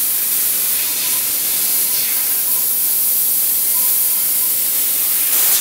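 Fiber laser cutting 2 mm stainless steel sheet: a steady, high-pitched hiss of assist gas jetting from the cutting-head nozzle through the cut.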